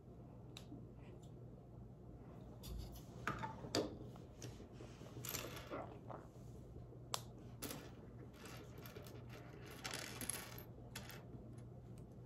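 Lego pieces clicking and clattering against each other as they are handled, with a few longer rattling stretches, the loudest around four seconds in.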